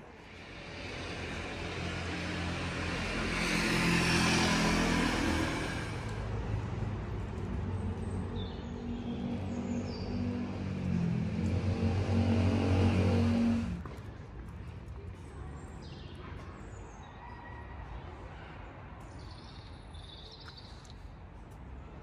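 Street traffic: a car passes, loudest about four seconds in, then a vehicle's engine hums close by and cuts off abruptly about fourteen seconds in. After that, quieter street ambience with a few faint bird chirps.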